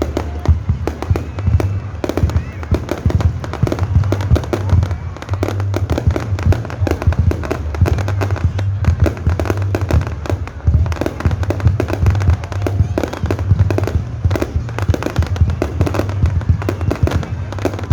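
Fireworks display: a dense, unbroken run of crackling and popping shells with low booms, music playing underneath.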